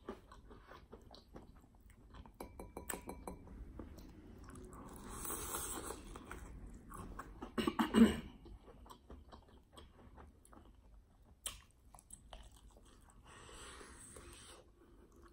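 Close-miked mouth eating fried chicken wings in sauce: wet smacking and chewing with many small clicks. There are two breathy stretches, and one brief, louder vocal sound about halfway through.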